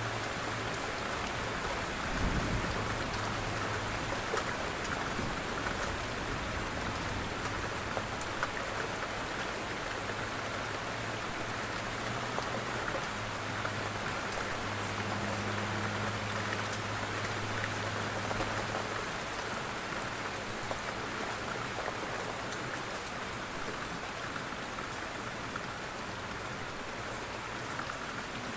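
Heavy rain falling steadily, an even dense hiss of drops, with one short low thump about two seconds in.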